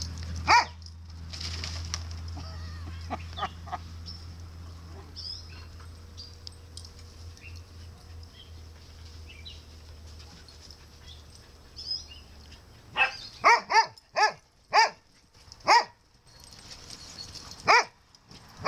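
A dog barking: one bark near the start, a quick run of about six barks about two-thirds of the way through, and another just before the end.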